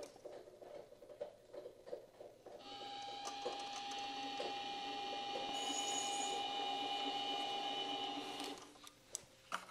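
Harbor Freight bench mini lathe started about two and a half seconds in and run for about six seconds with a steady whine while it turns a plastic pinewood derby wheel against the cutting tool, then switched off. A few light clicks of the controls come before and after.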